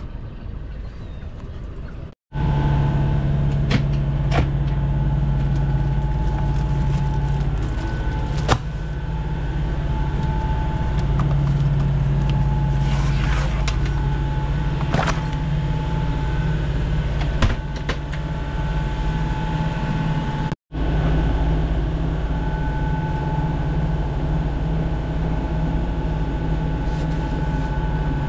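Inboard diesel engine of an Island Packet 485 sailboat running steadily under way, a loud drone with a low hum, heard from inside the cabin after the first couple of seconds. A few sharp knocks and clicks sound over it.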